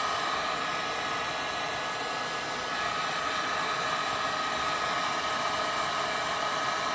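Industrial heat gun running steadily: an even rush of blown air with a constant high whine.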